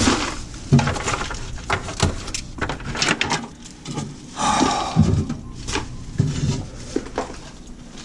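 Knocks and clatter of food containers and refrigerator drawers and shelves being handled as a fridge is emptied, with a longer rustle, like a plastic bag or wrapper, about four and a half seconds in.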